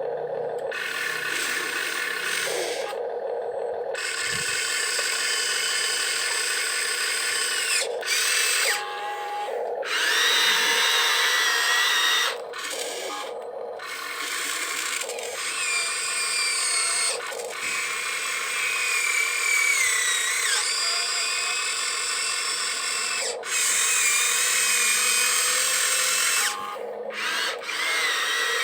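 Small electric gear motors of a Huina RC construction model whining in start-stop runs of a few seconds each, the pitch sliding up and down as the motors take and ease off the load.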